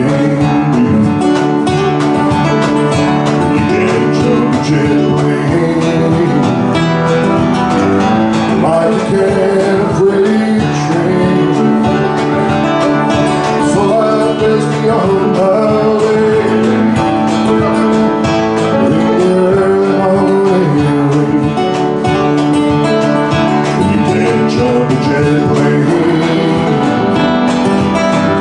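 A man singing a folk song while accompanying himself on acoustic guitar.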